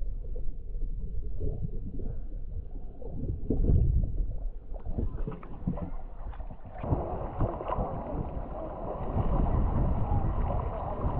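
Muffled underwater sound from a camera held below the surface of shallow seawater: a low rumble with scattered knocks and sloshes. About seven seconds in the camera breaks the surface, and the sound turns to brighter, steady splashing and lapping water close to the microphone.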